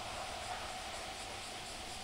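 Kintetsu electric train running on past along the line, its low rumble and a steady whine fading slowly. Faint insect chirps start near the end.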